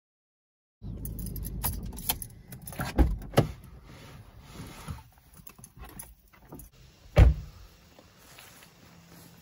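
After a brief silence, a small car's interior: a low rumble with a string of clicks, knocks and jangling keys as the car is shut off and left. About seven seconds in, the Chevrolet Sonic's door is shut with a single loud thump.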